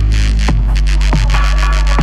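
Electronic dance music with a heavy, sustained bass and a drum hit about every half second.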